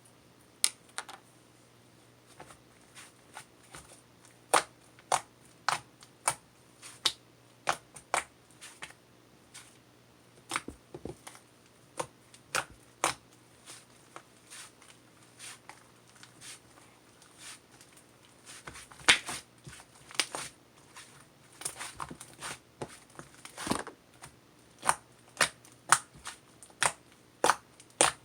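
A long series of sharp clicks and taps at an uneven pace, about one or two a second, with a few quick clusters.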